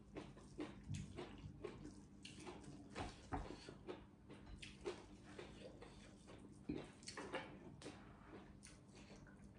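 Faint wet chewing and lip smacks of someone eating rice by hand: irregular small smacks and clicks, a few louder ones.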